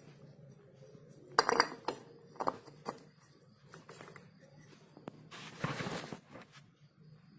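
Metal parts of a scooter's CVT transmission and tools clinking and clattering as they are handled during reassembly, loudest as a quick run of clinks early on, then a scraping rush lasting about a second.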